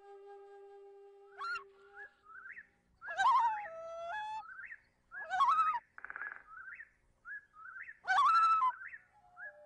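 Background music of a soft flute track with birdsong mixed in: short rising chirps and bending whistled calls, coming in separate groups.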